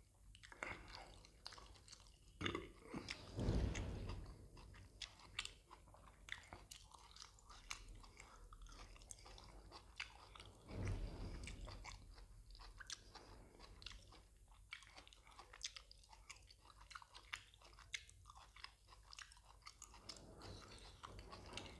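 Close-up chewing and wet mouth clicks of a person eating mutton curry by hand, with a few louder, longer mouth noises scattered through.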